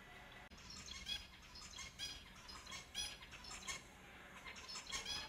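Finches calling: short, high chirps in quick clusters, starting about a second in.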